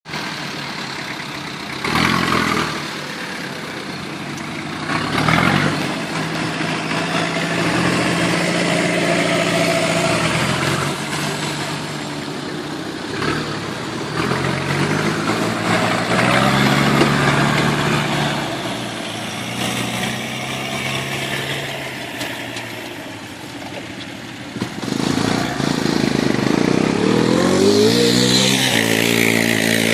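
Nissan Terrano's engine running and revving up and down repeatedly, its pitch rising and falling, with a steep climb in revs near the end. A few short knocks sound in the first several seconds.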